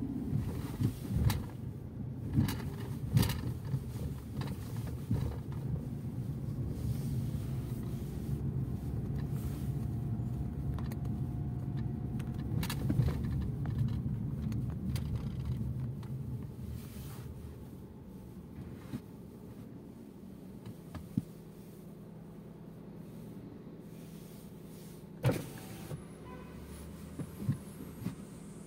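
Fiat Egea driving, heard from inside the cabin: a steady low engine and road hum that is louder for the first quarter minute, then quieter as the car slows in traffic. A few sharp knocks and rattles stand out, several in the first few seconds and a couple more near the end.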